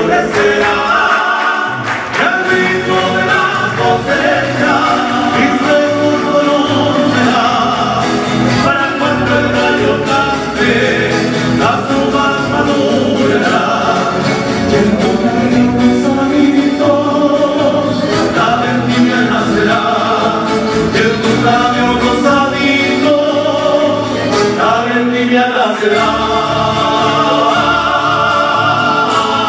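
Live Chilean folk song: several male voices singing together in harmony, accompanied by strummed acoustic guitars and accordion.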